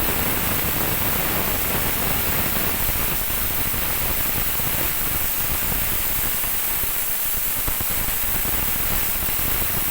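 Besan-and-ghee mixture sizzling and bubbling in a hot pan just after water has been added: a loud steady hiss with a fine crackle, starting suddenly.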